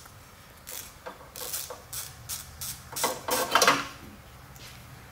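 Ratchet and wrench clicking and scraping against metal in short irregular bursts, working a spark plug loose on the trike's VW engine.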